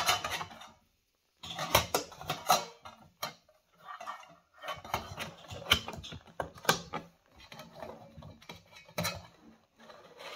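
Stanley Base Camp stainless steel cook set being handled and strapped with its bungee cord: irregular clinks, knocks and rattles of the nested pot, lid and contents, in short clusters with brief pauses.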